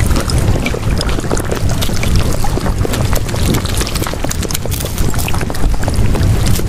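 Steady rushing, water-like noise with music under it: the noise layer of a subliminal audio track.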